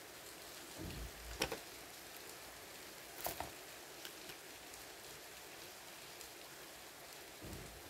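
Trading cards being handled and laid down on a wooden table: a sharp tap about one and a half seconds in, a short clatter about three seconds in, and a few lighter ticks, over a steady background hiss.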